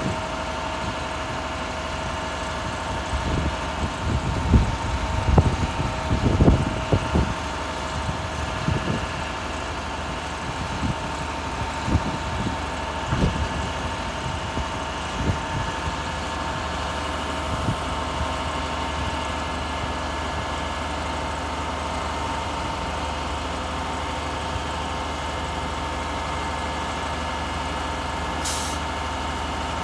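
Grapple truck's diesel engine running steadily with a steady whine from its hydraulics while the dump body is lowered and the grapple boom is worked, with a run of metal clunks and knocks in the first half. A short hiss near the end.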